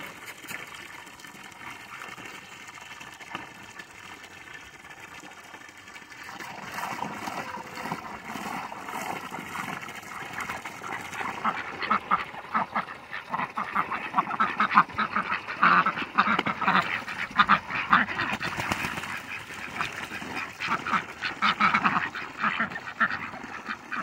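A flock of domestic ducks quacking. It is quieter at first, then becomes a busy, overlapping chorus from about six seconds in, loudest in the second half.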